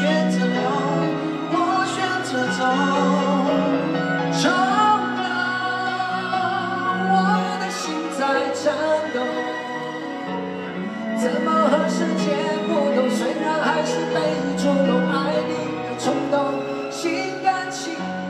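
Live band music with singing: sung lines over held bass notes, with occasional drum and cymbal hits.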